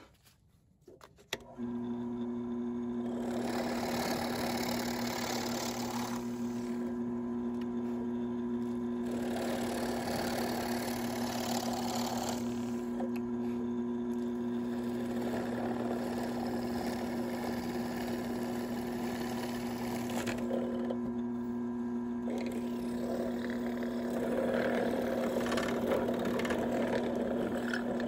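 Benchtop drill press running with a steady motor hum, starting about a second and a half in, while its twist bit cuts into a small block of stacked oak in several separate passes, boring holes side by side to open up a slot.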